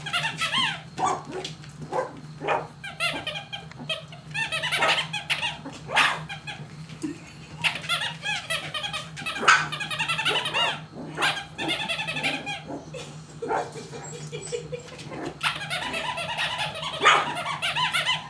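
A litter of corgi puppies yipping and whining almost without pause, many short high-pitched calls overlapping, over a steady low hum.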